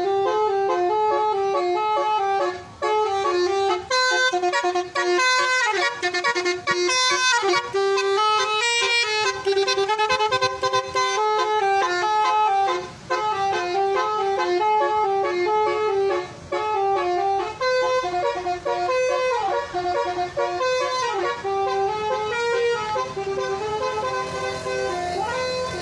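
Basuri telolet horn set, several horn trumpets driven by a melody module, playing fast tunes of stepped notes. The tunes break off briefly a few times, and near the end the notes slide up and down.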